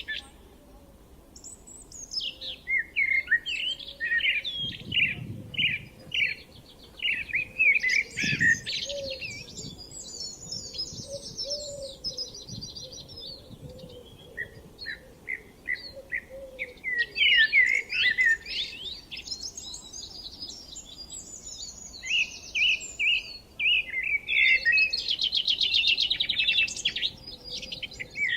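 Songbirds singing: long phrases of quick chirps, trills and sweeping notes, one after another with short pauses between.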